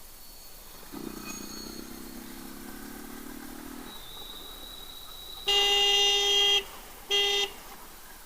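A vehicle horn sounds twice: a blast of about a second, then a short toot.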